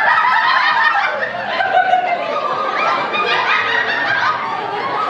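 Laughter, chuckling and snickering without a break.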